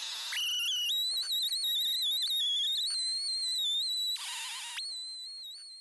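A high, wavering whistle-like tone, held and sliding slightly in pitch, with a brief hiss about four seconds in; it fades out near the end.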